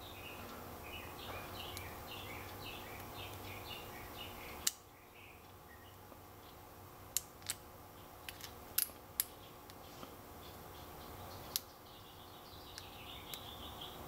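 Lock pick and tension wrench working the pin stack of an American Series 5200 padlock: sharp small metallic clicks at irregular intervals, about seven in all, as pins are pushed and set. Faint chirping sounds in the background.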